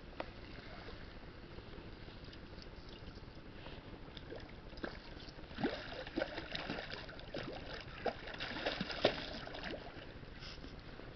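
A hooked rainbow trout thrashing at the water's surface: a run of sharp, irregular splashes, coming thickest in the middle and later part, over a steady wash of water noise.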